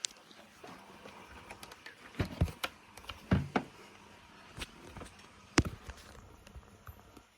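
A handful of sharp clicks and knocks from handling a Dyson CY23 Cinetic Big Ball 2 vacuum cleaner and its plug. The vacuum is not running. The knocks come in an irregular cluster a couple of seconds in, with two more single knocks later.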